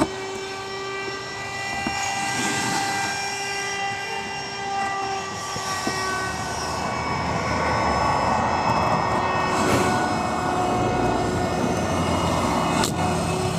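A machine running steadily, a whining hum of several steady tones over a rushing noise that grows louder around the middle.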